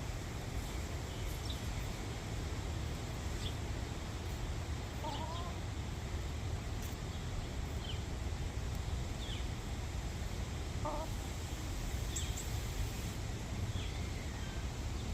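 Wind buffeting the microphone with a steady low rumble, while hens give a couple of brief calls, about five and eleven seconds in, and short high chirps come now and then.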